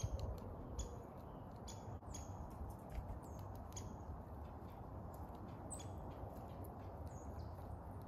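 Small songbirds giving short, high chip calls, about one a second, some with a quick downward flick, over a steady low rumble.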